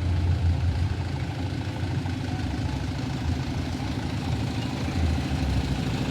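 Large engine idling with a steady low rumble.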